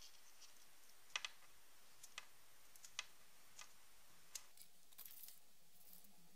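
A few light, sharp clicks and ticks of a small on/off switch and thin resistor leads being handled and bent by hand, spread out over otherwise near silence.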